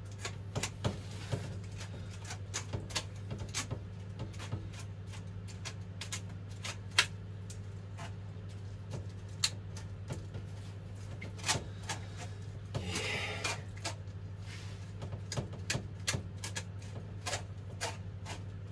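Irregular clinks and taps of a utensil working in a stainless steel bowl of boiled azuki beans, with a brief scraping rasp about two-thirds of the way through, over a steady low hum.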